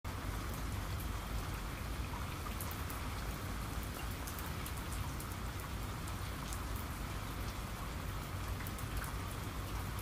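Steady rain falling, with many scattered individual drops ticking close by.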